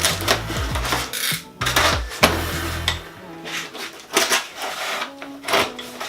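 Knocks, rubs and clatter of brew-kettle parts and packaging being handled and unpacked, over background music whose low bass line drops out about halfway through.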